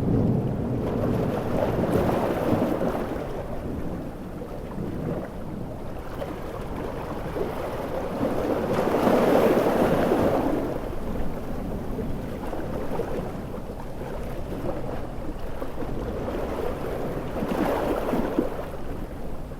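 Large ocean waves breaking on a shore, swelling and washing out three times, roughly every eight seconds, over a steady low rumble of surf.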